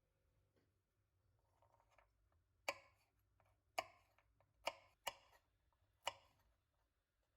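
Five sharp, irregularly spaced taps of kitchen utensils on a hard surface, with quiet room tone between them.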